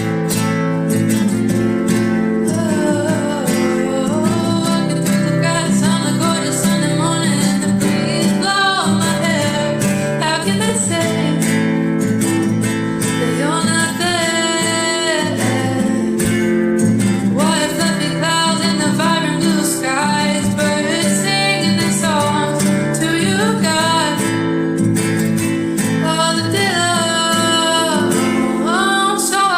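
A worship song: acoustic guitar strumming chords while a woman sings the melody.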